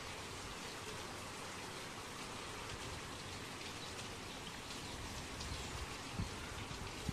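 Steady rain falling, an even hiss with a fine patter of drops, and a single soft low thump about six seconds in.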